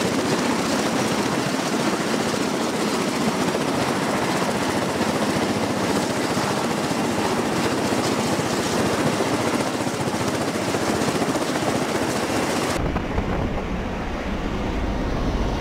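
MV-22 Osprey tiltrotor running on the ground, a steady dense rushing engine and rotor noise. About thirteen seconds in it changes abruptly to a duller, deeper rumble, as heard from inside the aircraft's cabin.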